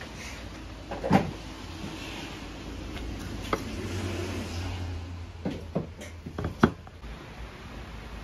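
Ceramic and glass dishes being handled and set down: a few sharp clinks and knocks over a steady low hum. There is one about a second in, another mid-way, and a quick cluster near the end, the last the loudest.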